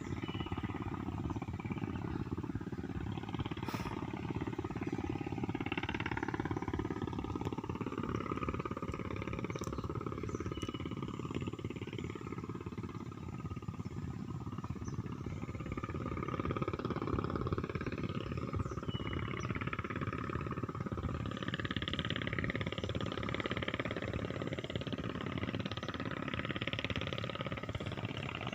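Wind buffeting the microphone: a steady, rough low rumble with no engine tone in it.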